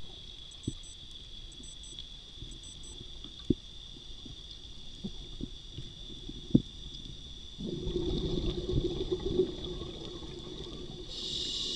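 A steady high-pitched drone with a few sharp knocks, then a couple of seconds of louder rustling noise about two-thirds of the way in, and a short hiss near the end.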